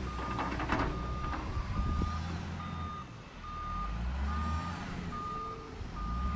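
Huina RC wheel loader's built-in sound module playing a reversing beep, a steady high beep repeating a little faster than once a second, over a simulated diesel engine drone that rises and falls as the loader is driven. Some light rattling clicks in the first second or so.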